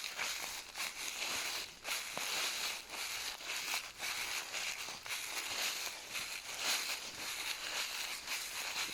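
Footsteps crunching and rustling through dry fallen autumn leaves on a forest floor, step after step at a walking pace.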